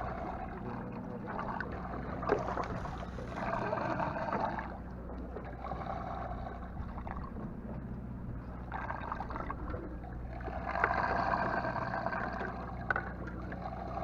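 Sportfishing boat's engine running with a steady low hum. Over it a rushing noise swells and fades several times, loudest around two to four seconds in and again past ten seconds, with a few sharp clicks.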